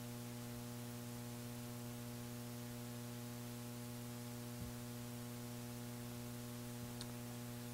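Steady electrical mains hum from the microphone and sound system, a low buzz with evenly spaced overtones, with a couple of faint ticks.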